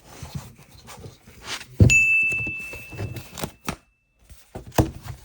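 Handling and rustling of a boxed trading-card collection's packaging. About two seconds in, a sharp knock sets off a clear high ding that rings and fades over about two seconds; another knock comes near the end.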